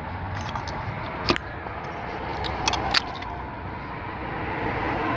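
Sharp clicks of the fuel temperature sensor's connector clip and sensor being worked loose by hand: one click about a second in and two more close together near three seconds, over a steady low background hum.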